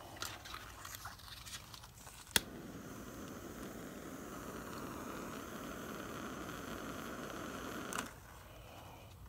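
Gooseneck torch lighter clicking to light about two seconds in, then its flame hissing steadily for about five and a half seconds before it shuts off abruptly near the end. A few faint rustles come before the click.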